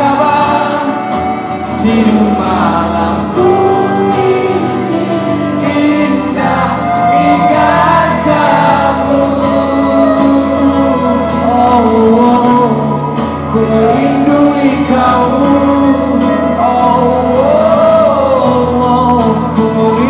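Live band music with singing: a song played on acoustic guitar, flute and cello, with a drum kit.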